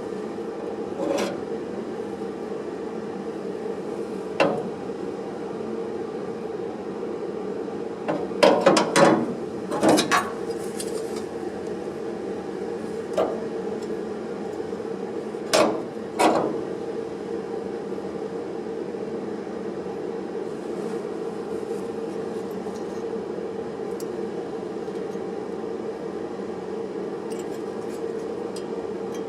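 Sheet-metal work with hand tools: a handful of sharp knocks and clanks, a cluster about eight to eleven seconds in and a pair near sixteen seconds, over a steady background hum.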